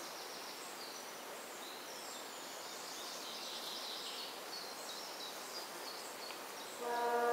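Small birds chirping and singing over a steady outdoor hiss. Near the end a train horn starts, a loud chord of several steady tones, from the M 131.1 'Hurvínek' railbus departing.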